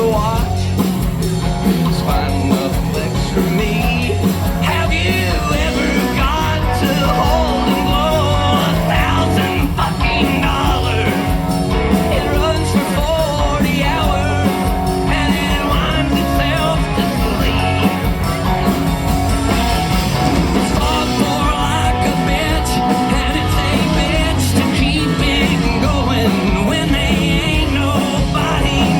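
A live band plays an up-tempo country-rock song, with a male lead singer over guitars and drums through a PA.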